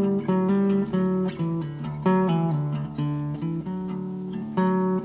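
Background music: acoustic guitar playing a picked, chordal tune with notes changing every fraction of a second.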